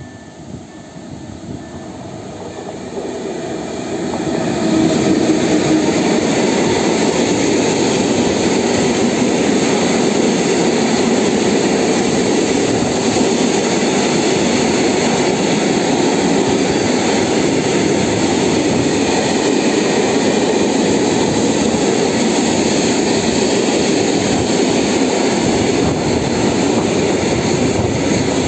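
Electric freight locomotive hauling a long train of open coal wagons past close by: the sound builds over the first few seconds as it approaches, then holds as a steady loud rush of wheels running on the rails.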